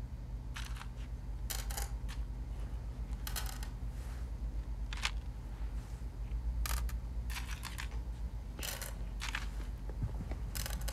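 Coins set down one at a time on a metal shop counter as change is counted out: short clinks every second or so, irregularly spaced, over a low steady hum.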